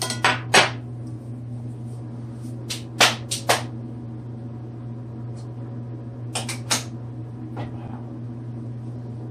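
Kitchen clatter: several groups of short clicks and knocks from dishes and utensils being handled on a countertop, over a steady low hum.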